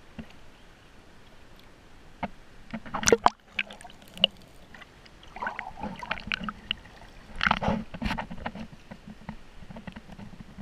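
Water splashing and sloshing as people wade through a shallow river, with irregular knocks and bumps. The loudest splashes come about three seconds in and again around seven and a half seconds.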